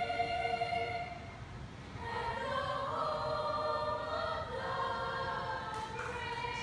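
Middle-school children's chorus singing long held notes. The voices fade out about a second in, then come back about a second later on a rising phrase.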